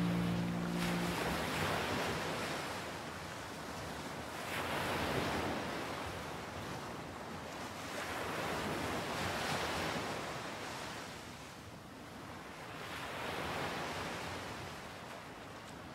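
Ocean surf washing onto a beach, a hiss of breaking waves that swells and fades about every four seconds.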